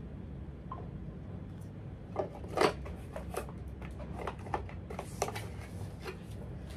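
Small cardboard product box handled and its flap pulled open: a scattering of short rustles and taps, the loudest about two and a half seconds in, over a low room hum.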